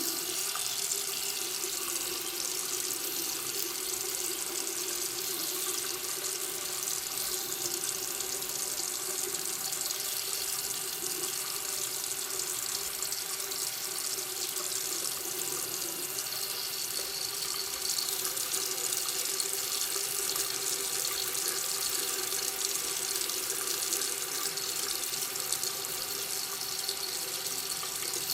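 Water tap running steadily, a continuous stream of water splashing into a sink.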